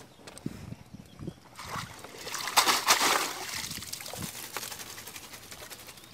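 Water splashing and pouring off a bamboo box fish trap as it is lifted out of shallow water. The splash peaks about two and a half seconds in, then fades to a trickle.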